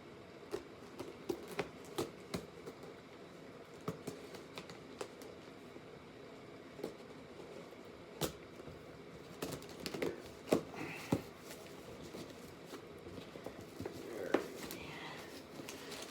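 A cardboard parcel and its packing being opened and handled by hand: scattered clicks and taps with short bursts of paper rustling.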